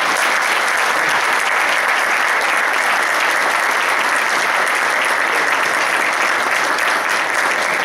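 Audience applauding steadily, a dense and even clapping.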